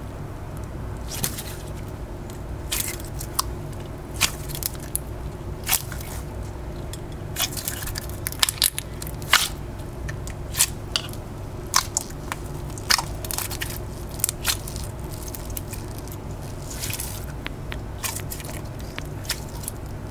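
Slime being squeezed, stretched and pressed by hand, giving irregular sharp clicking pops over a steady low hum.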